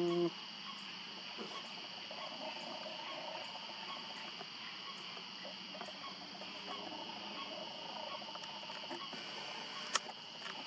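Steady high-pitched chorus of calling animals, insects or frogs, holding two even pitches throughout. A brief low pitched sound comes at the very start, and a single sharp click near the end.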